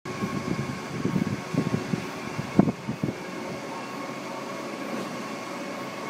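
Electric motor driving a stainless-steel shaftless screw conveyor, running with a steady hum and whine. Irregular low thuds come through the first three seconds, the loudest about two and a half seconds in.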